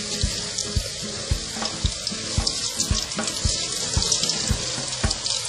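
Skewered chicken pieces deep-frying in ghee: a steady sizzling hiss with fine crackles from the bubbling fat. Background music with a steady low beat runs underneath.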